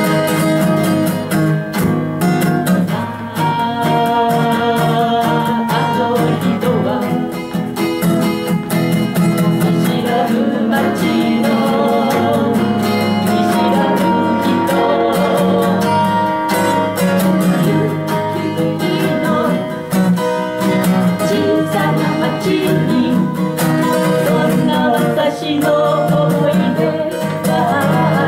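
Two steel-string acoustic guitars played together, accompanying a sung Japanese folk song.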